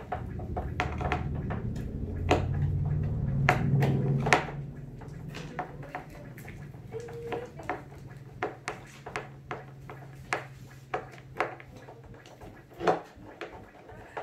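Hand screwdrivers clicking and tapping on screws and metal fittings in the top of a speaker cabinet: a scatter of sharp clicks and knocks throughout. A low hum is loud for about the first four seconds, then fades to faint.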